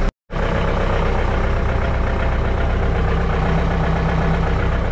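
John Deere 4520 compact tractor's diesel engine running steadily at idle. The sound breaks off completely for a moment right at the start.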